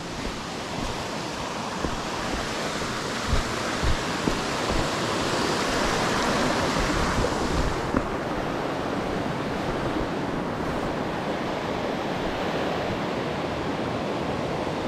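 Steady rush of a creek pouring over rocks at the top of a waterfall, swelling a little toward the middle and turning duller about eight seconds in. A few low thumps of wind on the microphone in the first few seconds.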